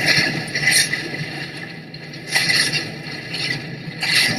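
Hurricane wind gusting in loud surges that ease off and come back, with a sudden gust about two seconds in and stronger gusts again near the end.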